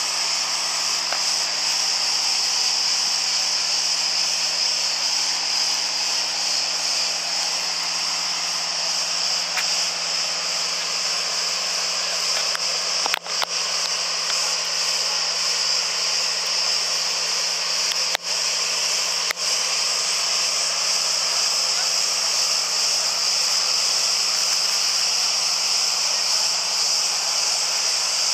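Cicadas singing in a steady, continuous high-pitched drone, with the sound briefly dropping out three times around the middle.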